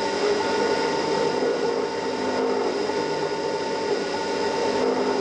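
CNC mini mill running a program: steady spindle motor whine and an end mill cutting into the part, with a higher whine that starts and stops every second or so as the axes move.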